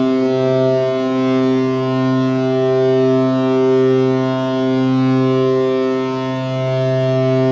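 Laval Rocket's hockey goal horn, the same model as the Colorado and Vegas horns, sounding one long, steady blast.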